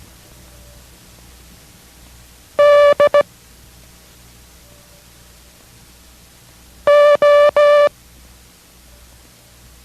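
Morse code practice tones at a steady single pitch, sent slowly as separate letters: D (dash-dot-dot) about three seconds in, then O (three dashes) about seven seconds in. A faint steady low hum lies underneath.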